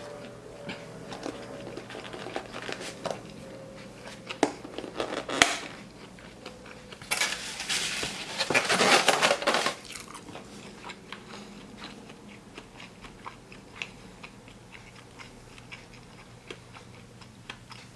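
Close-miked chewing of a sushi roll: wet mouth clicks and soft crunches, with a louder, busier stretch of chewing partway through.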